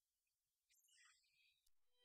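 Near silence, with only a very faint, brief high-pitched sound about a second in.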